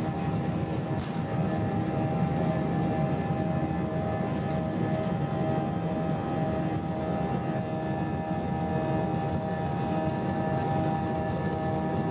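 Airbus A320-232's IAE V2500 engines heard from inside the passenger cabin: a steady roar of rushing air with several steady held tones over it, the engine buzz.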